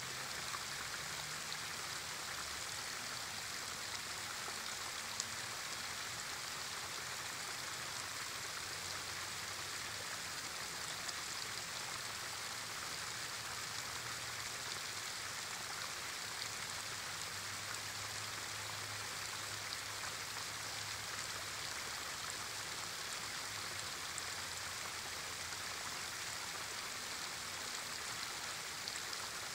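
Small waterfall splashing steadily as a thin stream of water pours over the stone ledge of an old canal lock into a rocky pool.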